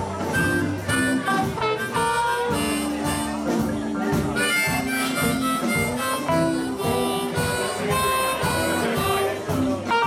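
Blues harmonica played into a cupped hand-held microphone, holding long notes over a live blues band with electric guitar, bass, keyboard and drums.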